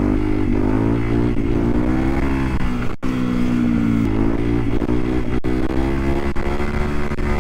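Dual-sport motorcycle engine running under way, its revs rising and falling with the throttle. The sound cuts out for an instant twice.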